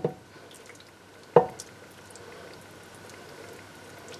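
Thick cheese sauce pouring and dripping from a stainless saucepan into a ceramic casserole dish, with soft drips and one sharp knock about a second and a half in, as of the pan against the dish.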